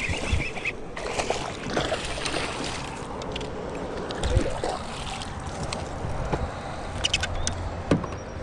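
Water splashing and sloshing as a hooked bass is reeled in and thrashes at the surface beside a small boat, with a few sharp clicks near the end.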